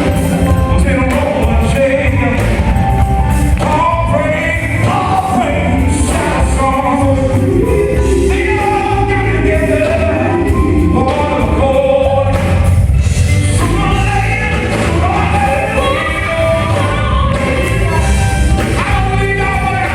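Gospel music with a choir singing over a steady, heavy bass line.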